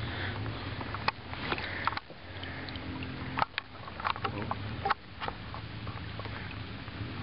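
Kayak being slowly maneuvered: scattered knocks and clicks of a paddle and gear against the hull, over a low rumble.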